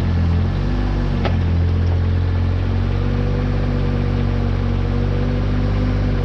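Bobcat X320 mini excavator's diesel engine running steadily while the machine works, with a higher tone above it that rises slightly in the middle, and one sharp click about a second in.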